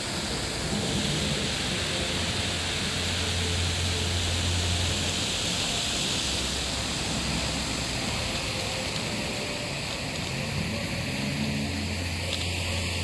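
Steady outdoor noise with a low rumble that swells and fades several times.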